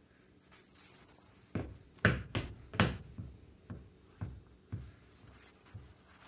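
A series of knocks and thumps, about two a second, starting about a second and a half in, loudest near the start and growing fainter.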